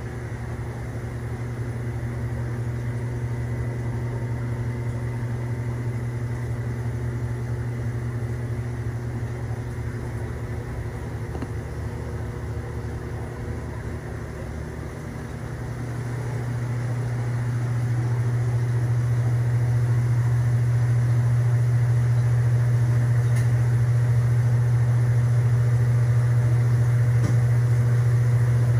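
Steady low mechanical hum of reef aquarium equipment in a fish room, growing louder about halfway through and then holding.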